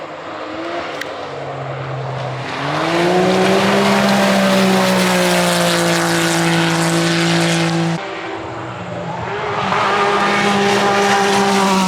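Off-road race car engines at high revs coming through on a gravel forest course. One engine note steps up in pitch about two and a half seconds in and holds loud until it breaks off abruptly near eight seconds. A second engine note builds from about nine seconds on.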